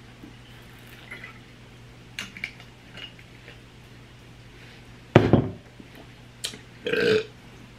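Glassware being handled on a table: light clinks and taps, a loud knock about five seconds in, and a short louder sound near the end.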